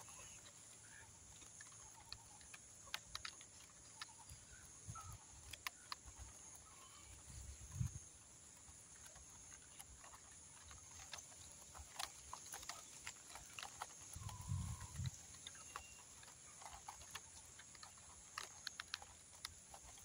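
Faint, sparse clucks from red junglefowl, with scattered small clicks and a few soft low thumps.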